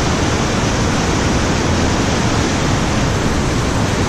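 Large river rapid: the steady, loud rush of fast water pouring over big standing waves.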